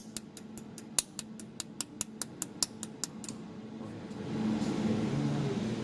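Desktop jewelry laser welder firing repeated pulses, each a sharp snap, about five a second, stopping about three seconds in. A steady hum with a low tone comes up about a second later.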